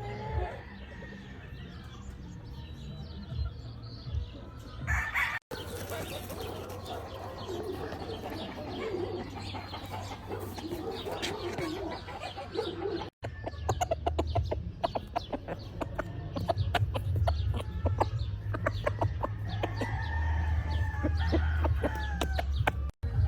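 Gamefowl roosters crowing, with clucking and sharp little clicks from the birds, in three takes joined by abrupt cuts.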